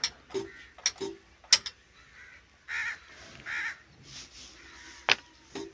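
Sharp metallic clicks as the fuel-pump lever of an old Ruston diesel engine is worked by hand, a run of them in the first second and a half and two more near the end. A crow caws twice in between, about three seconds in.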